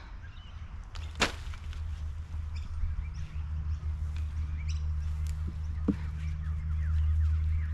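Birds chirping faintly in the background over a steady low rumble, with a single sharp click a little over a second in.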